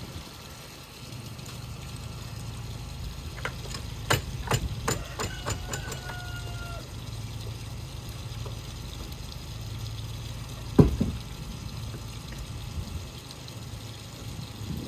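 An engine idling steadily in the background, with a quick run of clicks or knocks about four seconds in and one loud thump near eleven seconds.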